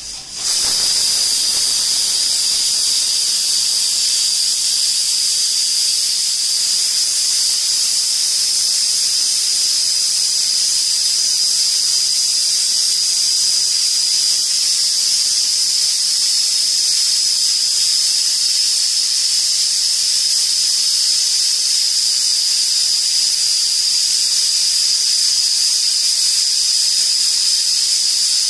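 Pressure cooker whistling: steam escaping under its weighted whistle valve as a loud, steady hiss with a shrill high tone, starting abruptly about half a second in. It is the sign that the cooker has come up to pressure.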